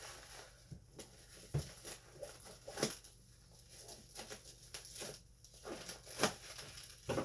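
Scattered light clicks and taps with faint rustling as a bubble-wrapped package is handled and unwrapped.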